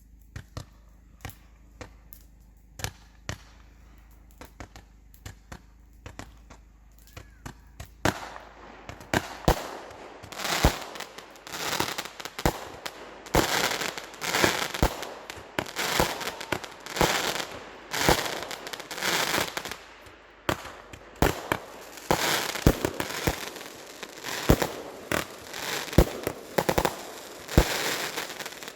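Fireworks going off. There are scattered sharp bangs at first, then from about eight seconds in a dense, continuous run of crackling bursts and bangs.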